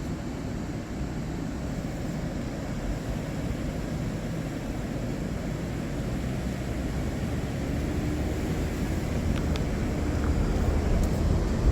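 Steady low road and engine rumble inside a moving car's cabin, growing a little louder over the last few seconds.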